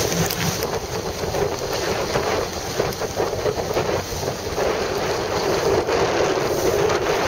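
Strong wind buffeting the microphone, a loud, continuous rushing noise that rises and falls unevenly in gusts, over choppy water.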